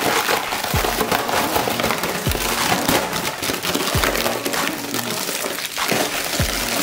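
Plastic protective bag crinkling and rustling as a helmet visor is worked out of it, over background music with a low kick-drum thump every second and a half or so.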